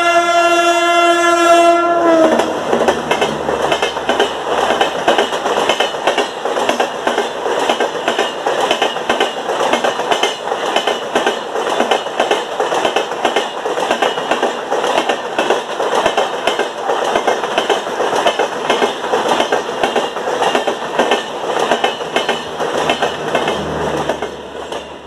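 WAP-7 electric locomotive sounding one long horn blast as it passes at speed, the pitch sagging slightly as the blast ends about two seconds in. The Rajdhani Express coaches then run through close by, with a rapid, rhythmic clickety-clack of wheels over rail joints and a rush of air, fading near the end as the last coach goes by.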